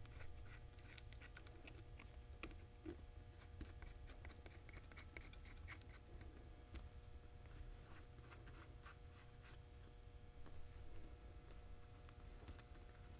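Faint small metal clicks and scrapes of ring-gear bolts and lock tabs being handled and turned by fingers on a Dana 44 Powr-Lok differential carrier, over a faint steady hum.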